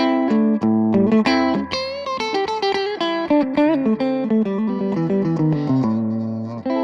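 Electric guitar played through a Cort MX15 practice combo amplifier: picked single notes and short chord phrases, with a few bent notes about two seconds in.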